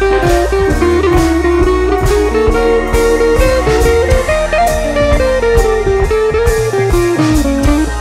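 Background music: a blues tune led by guitar over a steady drum beat.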